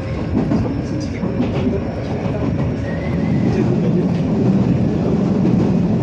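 Electric commuter train running along the track, heard from inside behind the driver's cab: a steady rumble of wheels on rail and the running gear.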